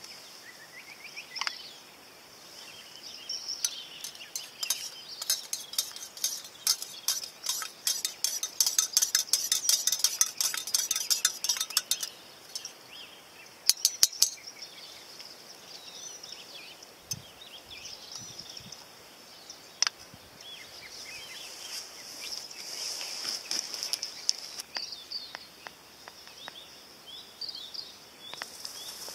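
A metal spoon stirring coffee in a camping mug: a quick run of clinks against the sides for several seconds, then a few sharp taps, likely on the rim, with softer clinks later on. A steady high insect drone runs underneath.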